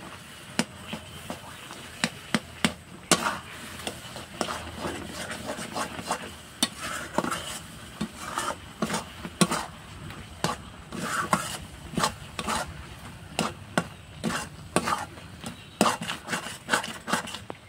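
A spatula stirring a thick filling of milk and moong dal in a kadai, with irregular sharp knocks and scrapes against the pan.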